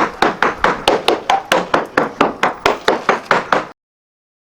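Surveyor's mallet tapping rapidly over a boat hull, about four or five sharp knocks a second, sounding the laminate for delamination and hollow spots. The tapping stops suddenly near the end.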